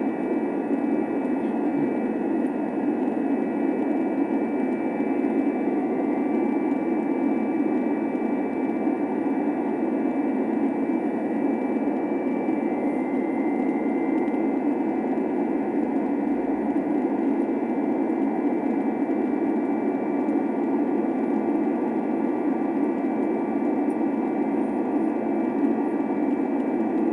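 Jet engines of a Southwest Airlines Boeing 737 running at steady power: an even rushing noise with several faint, steady whining tones above it.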